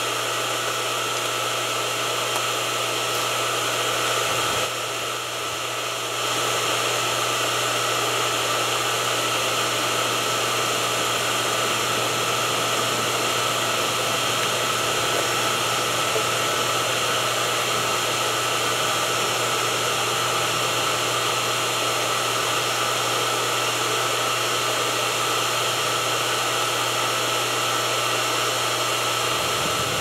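A 120-volt water pump's electric motor running steadily with a low hum and an even whirring rush, powered through its newly replaced pressure switch.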